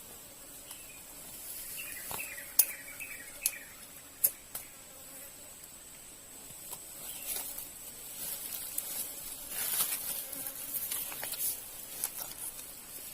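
Insects trilling steadily at one high pitch, with a few sharp clicks and some rustling over it.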